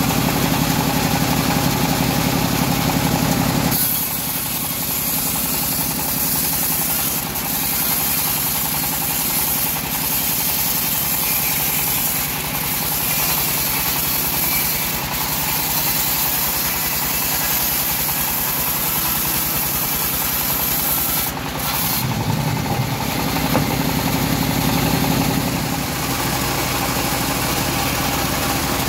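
Homemade band-saw mill running and sawing through a teak log. The machine's steady low drone gives way about four seconds in to a high hiss of the blade cutting the wood, and the drone comes back strongly about two-thirds of the way through as the cut finishes.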